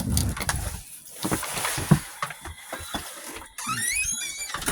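Wind rumbling on the microphone, with scattered knocks and clicks from handling bird feeders, and a short warbling bird call near the end.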